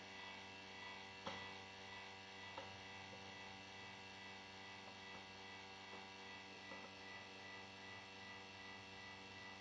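Near silence: a faint, steady electrical hum, with a few faint clicks.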